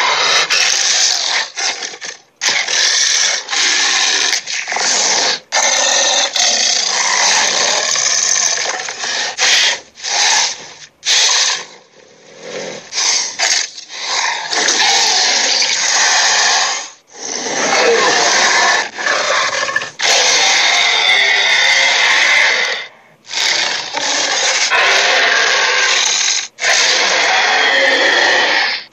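A string of cartoon sound effects: harsh, rasping, noisy sounds, each lasting one to several seconds and cut off abruptly before the next begins.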